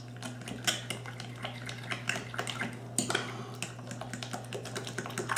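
A metal utensil stirring a wet batter in a glass bowl. It clinks and scrapes against the glass in a steady run of short, irregular clicks.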